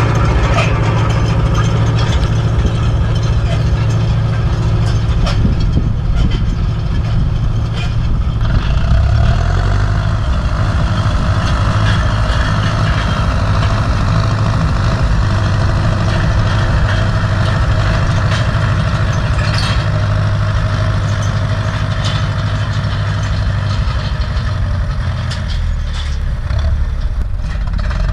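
Turbocharged Ursus C-360 tractor's three-cylinder diesel engine running steadily under load while pulling a land roller. The engine note shifts about nine seconds in.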